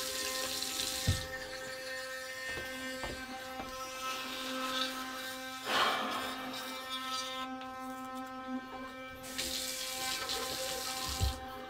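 Electric toothbrushes humming steadily in a steady buzz, with a hiss of running water at first and again near the end.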